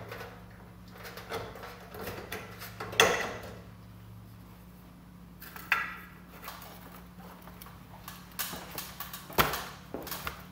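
Handling knocks and clicks of old fluorescent tubes being twisted out of their end sockets and taken down from a ceiling fixture: a few separate sharp knocks, the loudest about three seconds in and a cluster near the end.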